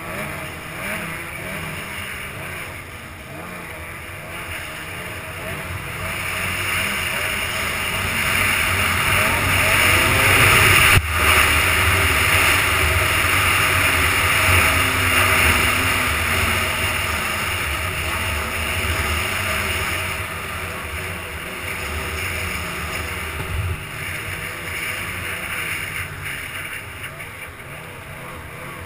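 Ski-Doo 800 E-TEC two-stroke snowmobile running under its rider, getting louder from about six seconds in as it speeds up, loudest around the middle, then easing off toward the end. A single sharp knock about eleven seconds in.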